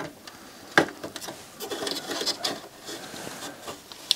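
Hands handling the parts of a CD player: a sharp click about a second in, then lighter clicks and a stretch of rubbing and scraping.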